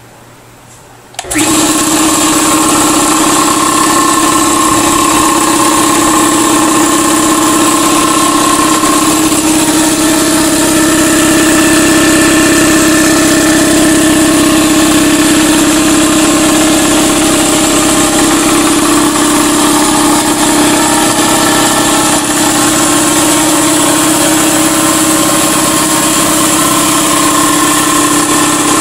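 Campbell Hausfeld 60-gallon vertical air compressor (model 45093) switching on about a second in, then running steadily and loudly as its electric motor drives the pump.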